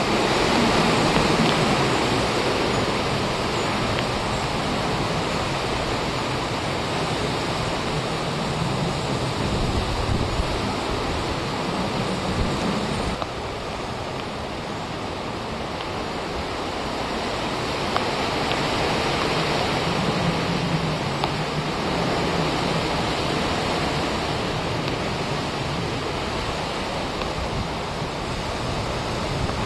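Strong storm wind rushing steadily, swelling and easing in gusts; it drops a little about thirteen seconds in and builds again a few seconds later.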